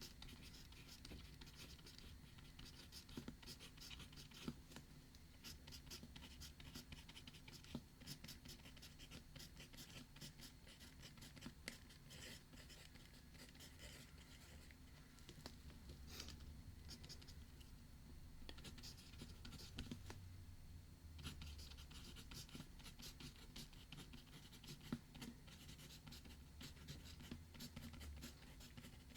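Faint scratching of writing on paper, irregular and continuous, over a low steady hum.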